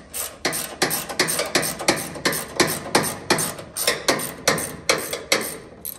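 A steel bolt being wound out of the jig mount with a hand wrench: a quick, even series of short metallic rasps, about three a second, stopping near the end.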